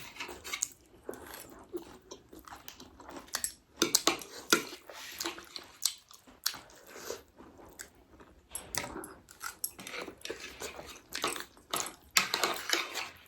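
Close-up eating sounds of spicy instant noodles: irregular chewing, biting and slurping, with short clicks scattered throughout.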